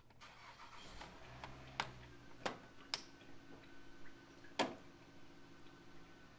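Sharp metallic clicks of a line-disconnect tool being worked onto an oil line fitting, four or five separate clicks with the loudest about four and a half seconds in.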